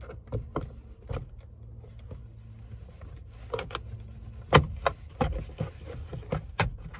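Plastic trim clicks and snaps as the door-pull handle cover on a 1997 Toyota Corolla's interior door panel is pried up with a small screwdriver and its clips let go. There are about ten irregular clicks, the sharpest about four and a half seconds in, over a steady low hum.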